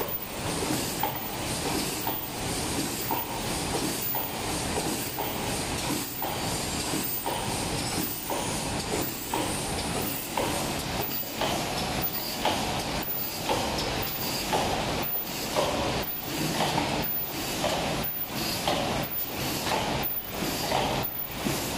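Paper cup machine running in line with a double-wall sleeve machine: a steady mechanical clatter that repeats a little more than once a second, with a constant hiss beneath.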